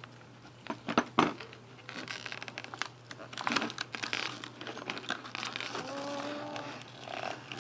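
Clear plastic toy packaging and its cardboard box crinkling and crackling as a small doll figure is pulled out of it, with irregular sharp clicks, loudest about a second in.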